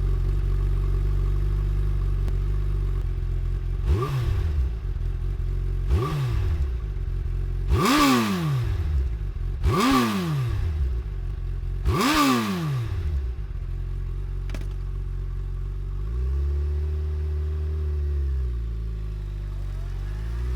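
Suzuki motorcycle engine idling, blipped five times about every two seconds: sharp revs that fall straight back to idle, the last three higher than the first two. Near the end a slower, gentler rise and fall in revs.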